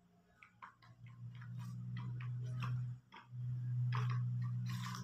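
Domestic cat growling low and steady over the rat it has caught: two long growls with a short break about three seconds in. Irregular sharp clicks sound throughout.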